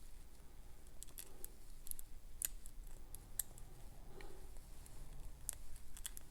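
Small, sharp metallic clicks and light scrapes of a lock pick working the pin stack in a Paclock 200A padlock under tension, irregularly spaced with a few coming in quick pairs.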